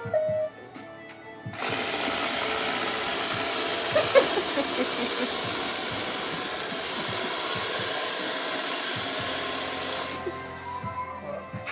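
Robot vacuum cleaner's motors running with a steady whirring hiss for about eight seconds, switching on abruptly a second or two in and cutting off abruptly near the end. A short electronic tone sounds just before it starts.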